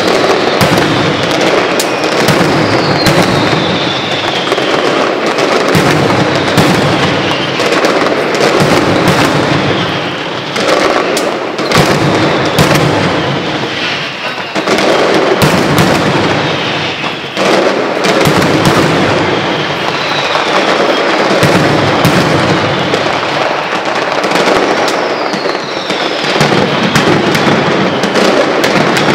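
Mascletà by Pirotecnia Crespo: a dense, unbroken barrage of firecracker bangs from a ground-level daytime pyrotechnic display, with high whistles falling in pitch now and then.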